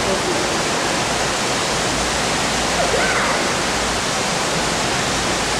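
Steady rushing of water at a swimming pool, with a faint voice briefly heard about three seconds in.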